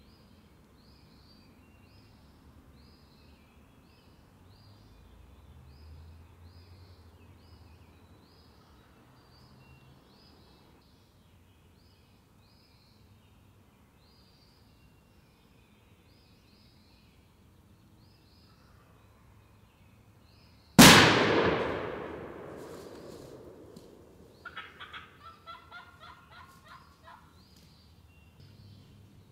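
A single loud shotgun shot, the loudest sound by far, fading out over about three seconds. About three seconds later comes a rapid rattling turkey call. Faint high songbird chirps repeat throughout.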